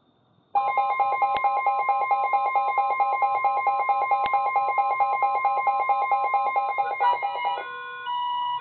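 Weather alert radios going off. A steady tone near 1 kHz, the NOAA Weather Radio warning alarm tone, sounds under a receiver's rapid electronic beeping. About seven seconds in, the rapid beeping stops and slower beeps, each about a second long, carry on over the steady tone.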